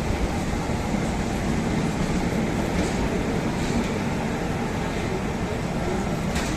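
Passenger train running on the rails: a steady rumble with a few faint clicks.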